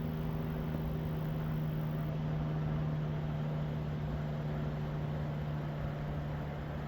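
A steady low mechanical hum held at one constant pitch over an even background noise, with no bangs or crackles.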